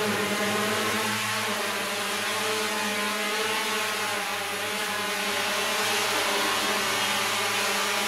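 Hexacopter drone's motors and propellers humming steadily as it hovers.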